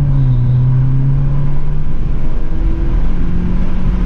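Skoda Octavia RS245's turbocharged 2.0 TSI four-cylinder running through a Milltek and Borla GPF-back exhaust, heard from inside the cabin with the windows down while driving: a steady low exhaust rumble over road noise, its pitch climbing slightly.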